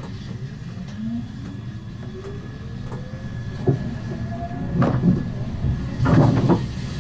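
Siemens Avenio tram running on rails with a steady low rumble, its drive whine rising in pitch over a few seconds as it picks up speed. Several clattering knocks come near the end.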